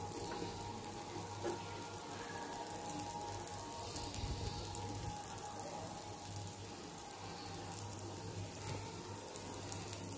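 Dosa batter sizzling and crackling faintly on a hot griddle as it cooks, over a steady low hum.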